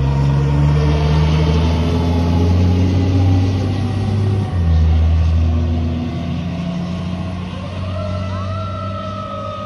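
Fire truck's diesel engine accelerating away, its pitch climbing, then dropping as it shifts up a gear about four and a half seconds in, and fading as the truck pulls away. Near the end a siren winds up to a steady high tone.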